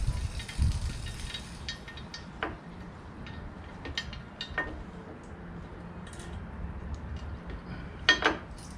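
Metal hand tools and parts clinking and knocking every second or so, with a louder cluster of clinks near the end.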